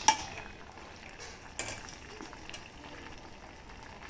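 Steel ladle clinking against a stainless-steel pot while stirring and scooping simmering vegetables, over a faint bubbling of the liquid. A sharp metallic clink with a short ring comes at the start, another about a second and a half in, then a few lighter taps.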